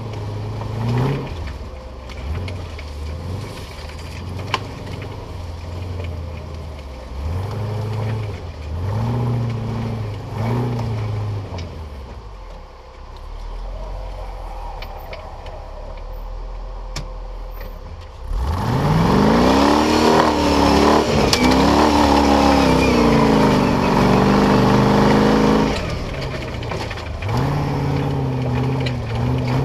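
Off-road buggy's engine revving in short bursts, easing off to a lower note, then climbing sharply and holding at high revs for about seven seconds before dropping back to short revs.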